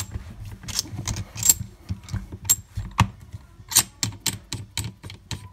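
Irregular clicks and light metallic taps from hands screwing up the threaded collar over the 90-degree angle head on a Gesipa cordless rivet gun's nose, with a sharper click about three seconds in.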